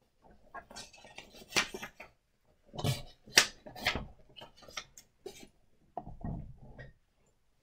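A faint, irregular run of clicks, taps and rustles, like small objects being handled, with a few louder knocks a little after the middle.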